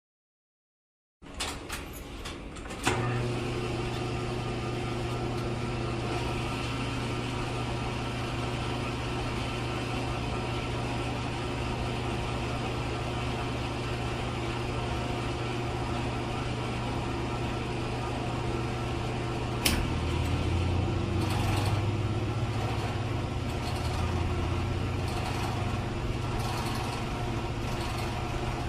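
Gas station ambience: a steady low mechanical hum, with a sharp click a couple of seconds after it starts. Another click comes about two-thirds of the way through, and a deeper hum joins after it.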